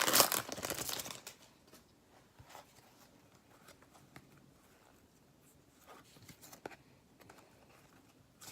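A hockey trading-card pack wrapper being torn open and crinkled for about the first second. After that, a few faint ticks and rustles of the cards being handled.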